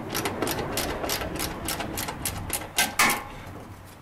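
Hand ratchet clicking rhythmically, about three clicks a second, as it undoes a bolt holding the front wing on, ending with a louder metallic clink about three seconds in.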